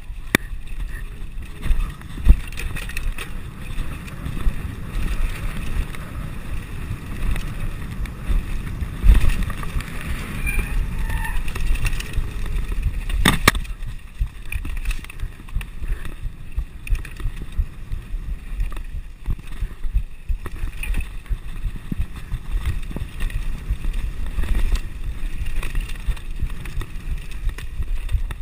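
Nukeproof Mega TR 275 full-suspension mountain bike riding down a wet grassy singletrack: a continuous rumble of tyres and rattling bike with frequent sharp knocks over bumps. The loudest knocks come about 2, 9 and 13 seconds in.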